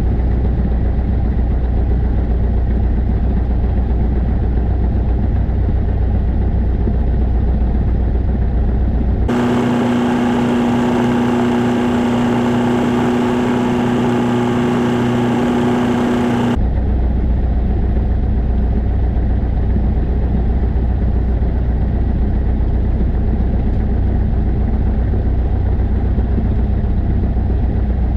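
Single-engine light aircraft's piston engine idling steadily, heard inside the cockpit. For about seven seconds in the middle the sound switches abruptly to a brighter steady hum with a strong tone, then returns to the low idle drone.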